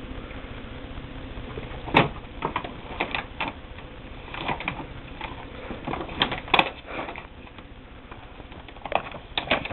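Ferrets scuffling over a cat toy: a string of irregular sharp clicks and knocks, some in quick clusters, the loudest about two seconds in and again past the middle.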